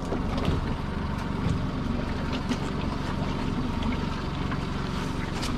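Small boat's outboard motor idling steadily, a low even rumble, with a haze of wind and water noise and a few faint knocks from the pot being handled.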